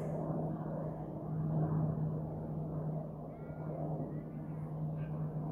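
Distant propeller aircraft passing high overhead: a steady low drone.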